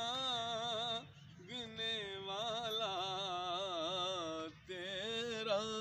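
Male voice singing a naat in long, wavering held notes, pausing briefly about a second in and again at about four and a half seconds.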